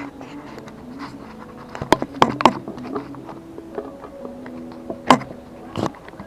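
A few sharp clicks and knocks from handling, a cluster about two seconds in and more near the end, over faint held background tones that move in steps like a tune.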